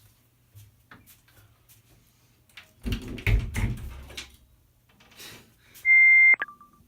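Muffled knocking and rumbling around three seconds in. Near the end comes a short, loud, steady electronic beep lasting about half a second, followed by a brief lower blip.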